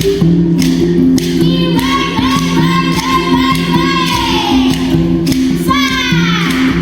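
Mbira music: a repeating pattern of low plucked mbira notes with rattling percussion marking the beat, and a child's voice singing a long line from about two seconds in, then a falling vocal glide near the end.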